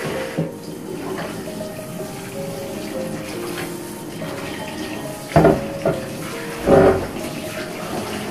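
Water running from a kitchen tap into a sink, with two short louder sounds a little past halfway, about a second apart.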